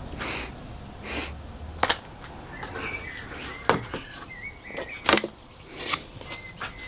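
Handling sounds while working on a balsa model: a few sharp clicks and taps and two soft swishing rustles, with faint bird chirps in the background.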